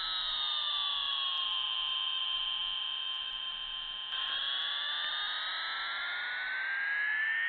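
Low-fidelity toy airplane engine sound effect: a whining engine tone over a hissing rush. The pitch sinks slowly, holds low, then begins to rise again about four seconds in, like a plane passing overhead.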